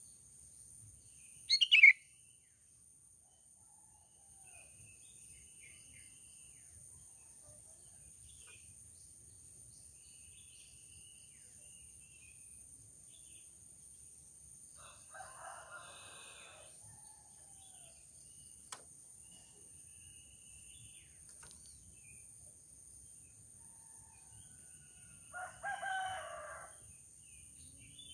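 Sooty-headed bulbul giving one short, loud call about two seconds in, with faint scattered chirps afterwards. A rooster crows fainter in the background, once near the middle and again near the end.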